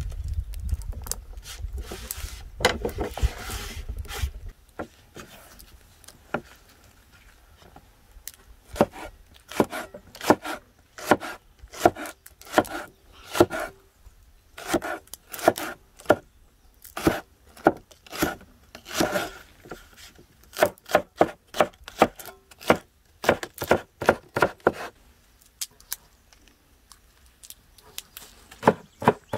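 A large cleaver chopping long green peppers on a wooden cutting board: runs of sharp knocks, several a second, with short pauses between runs.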